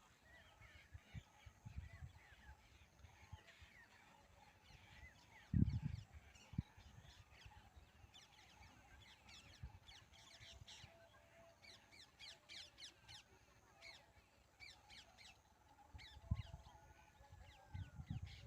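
Many birds calling in a flock: a faint, busy chorus of short, quick calls, many falling in pitch, densest in the middle. A few low thumps break through, the loudest about five and a half seconds in.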